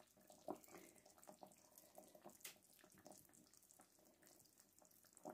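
Near silence, with faint scattered small liquid squelches and light clicks of a metal utensil stirring a lump of butter into a sour-cream sauce in a stone-coated pot.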